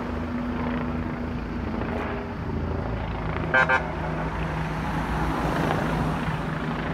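Road traffic with a vehicle engine running steadily, and a car horn tooting twice in quick succession about three and a half seconds in.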